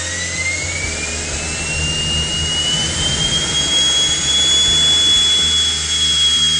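Miniature metal 3D-printed turbine jet engine spooling up on a test stand: a rising turbine whine over a rushing exhaust that climbs for about the first three seconds, then holds at a steady high pitch.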